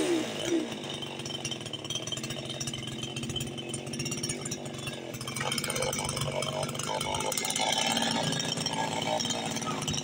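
Gas two-stroke chainsaw engine idling steadily after a rev dies away right at the start.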